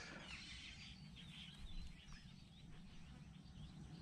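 Faint wild birds chirping in short high calls, mostly in the first two seconds, over a steady low background rumble.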